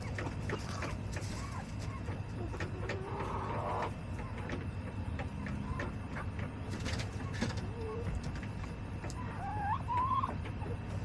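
Backyard hens giving a few soft clucks and short calls, with a louder wavering call near the end, over scattered light clicks and a steady low hum.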